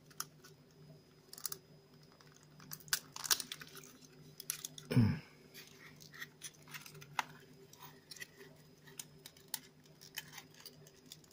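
Pre-cut cardboard model pieces being handled, creased and pushed together: scattered small clicks and crinkles over a faint steady hum. A brief low vocal sound about five seconds in.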